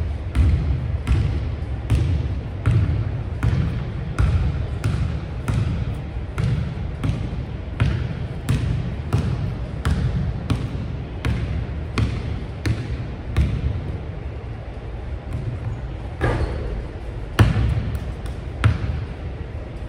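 Basketball being dribbled on a hardwood gym floor, a steady bounce about every three-quarters of a second, each bounce echoing through the large hall. A few louder knocks come near the end as the dribble breaks into a shot.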